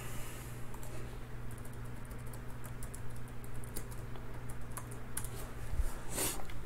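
Typing on a computer keyboard: scattered, irregular key clicks. A short, louder swish comes about six seconds in.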